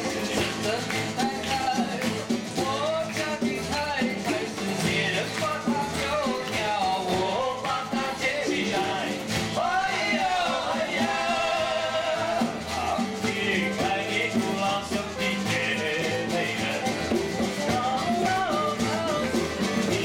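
Live band music: voices singing into microphones over strummed acoustic guitar and the band, one held note wavering about halfway through.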